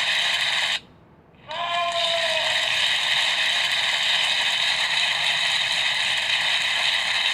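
Explosion sound effect played through the small speaker of a cheap MP3 sound module: tinny, without bass. It cuts off abruptly about a second in, when the trigger contact is released, then starts again half a second later when the contact is touched again.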